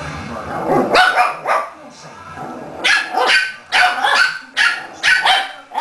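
Small dog yapping in play, a string of short high barks: a few around a second in, then a quick run of about two or three a second from about three seconds in.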